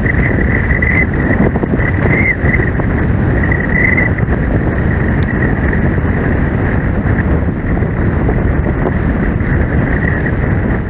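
CFM LEAP-1A jet engines of an Airbus A321neo running at low power as the airliner rolls along the runway, heard through heavy wind noise on the microphone. A high wavering whine comes and goes over the first few seconds.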